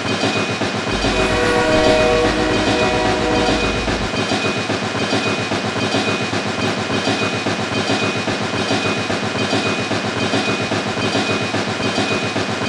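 A small geared motor running with a fast, even rattle. For the first few seconds a few steady tones sound over it.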